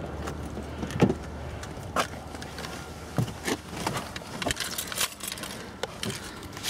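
A car door opening and someone getting into the seat: a string of knocks and clicks with keys jangling, the loudest knock about a second in.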